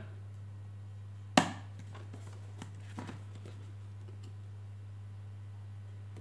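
A single sharp knock about a second and a half in, then faint clicks and scratches as a knife blade slits the seal sticker on a cardboard smartphone box, over a steady low hum.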